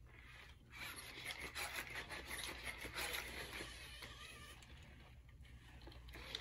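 Sony Aibo ERS-1000 robot dogs moving, their joint motors and bodies making a faint, rasping mechanical noise that starts about a second in and fades near the end.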